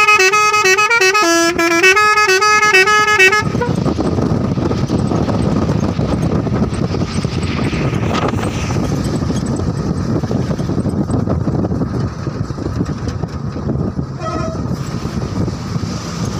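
A musical vehicle horn plays a short tune of stepping notes for about the first three seconds. Then comes the steady running noise of the moving vehicle and wind, with a brief horn toot near the end.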